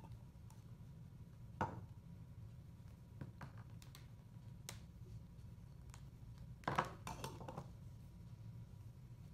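Small cups and plastic toys being picked up and set down on a table: one sharp knock about a second and a half in, a few light taps, then a short clatter of several knocks near seven seconds, over a low steady room hum.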